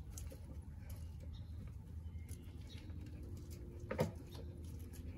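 A detection dog searching around a parked SUV: faint sniffing and scuffling with small clicks, over a steady low rumble. One sharper knock comes about four seconds in.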